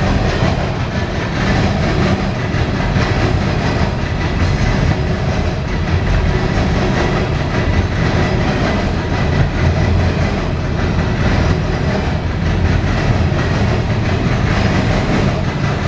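CSX coal train's hopper cars rolling past at close range, a steady loud rumble of steel wheels on rail.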